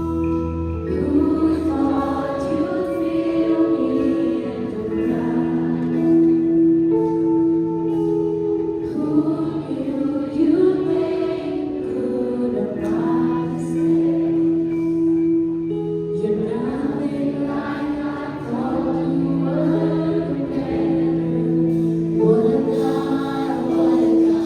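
Live worship music: a group of voices singing over sustained, held chords.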